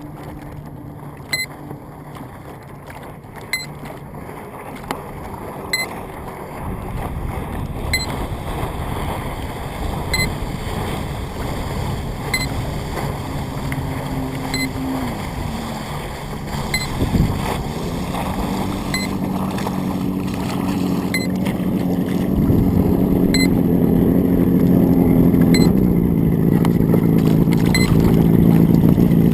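Motor and propeller of an FPV model aircraft running with wind rush. The pitched hum dips sharply about seventeen seconds in, then comes back and grows steadily louder toward the end.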